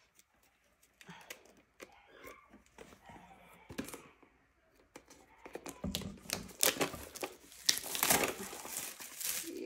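Plastic shrink wrap being torn off a boxed watercolor paint set and crumpled, after a few light clicks and taps; the crinkling turns loud and dense about halfway through.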